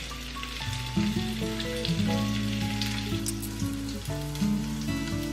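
Coated tofu cubes sizzling and crackling as they fry in hot oil in a pan, with soft background music playing under it.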